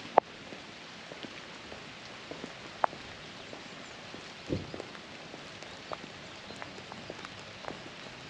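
Steady hiss of falling rain with scattered drops striking close by. A few sharp, louder drop ticks stand out, and there is a duller thump about halfway through.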